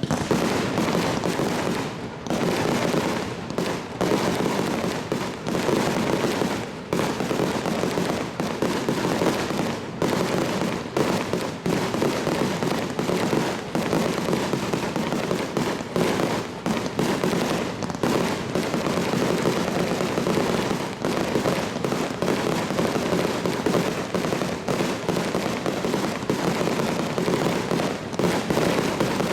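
Fireworks display: a dense, unbroken barrage of aerial shell bursts, bangs and crackling following one another several times a second.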